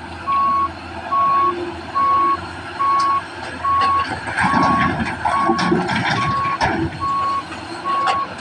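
Heavy-equipment backup alarm beeping at a steady single pitch, a little more than once a second, over a diesel engine running. The engine grows louder, with some clattering, from about four to seven seconds in.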